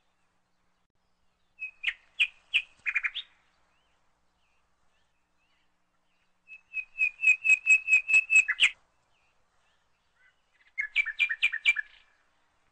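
Bird song: three phrases of quick, evenly repeated high chirps, about six notes a second, the middle phrase the longest and loudest, with silence between the phrases.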